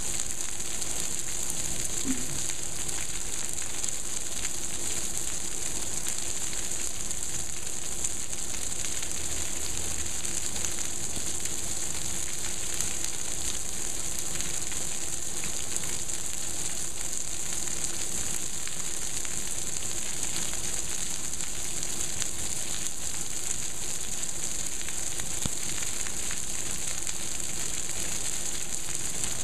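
Heavy monsoon downpour: a steady, unbroken hiss of rain falling on a swimming pool, paving and roofs.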